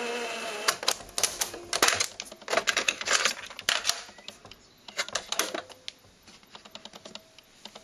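Ferguson 3T13 radio-cassette recorder being handled: music from it stops within the first second, then a run of sharp plastic clicks and clacks as the keys are pressed, the cassette door opens, a tape is loaded and the door is shut. Fainter ticks follow near the end.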